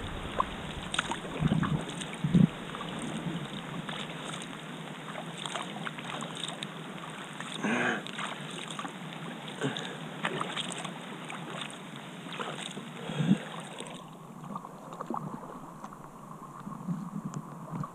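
Kayak paddle strokes in calm water: the blades dip and splash now and then over a steady wash of water sound, with a few louder splashes.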